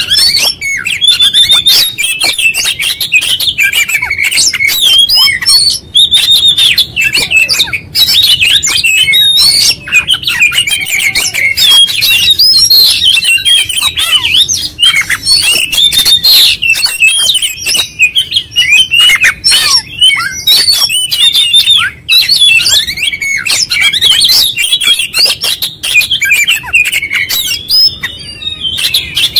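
Oriental magpie-robin singing without pause: a loud, fast, jumbled stream of varied chirps, whistles and harsh chattering notes. This is the 'gacor', 'konslet' style, with the bird running through its full repertoire of learned phrases.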